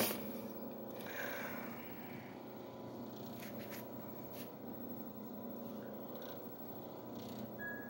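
Low, steady background hum with a sharp click right at the start and a few faint ticks after it.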